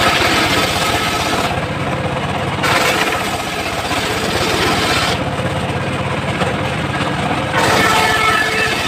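Engine-driven homemade circular sawmill running steadily while its blade cuts a teak log. The blade bites into the wood in three stretches: at the start, from about 2.5 to 5 seconds in, and again near the end.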